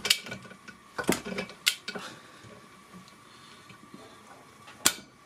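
Torque wrench with a ratchet head working the brake caliper carrier bolts on a steering knuckle, tightening them to 60 Nm: sharp metallic clicks, three in the first two seconds, then a quieter stretch and one loud click near the end.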